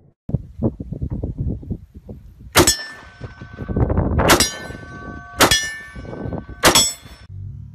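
AR-style rifle firing: a string of softer knocks, then four loud sharp shots a second or more apart, each followed by a metallic ringing clang.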